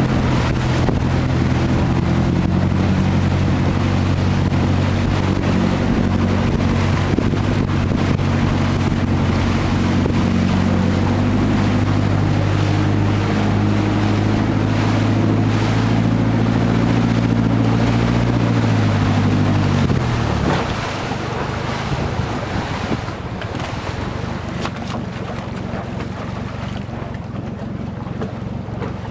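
A motorboat's engine running steadily as the boat travels along a canal. About two-thirds of the way in the engine note falls away, leaving the rush of water and wind.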